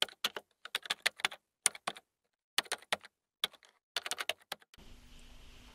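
Typing on a computer keyboard: sharp key clicks in quick runs with dead silence between. About five seconds in the clicks stop and a faint steady hum with hiss takes over.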